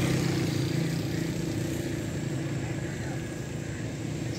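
Steady low engine hum of a motor vehicle running nearby, slowly fading, over faint outdoor noise.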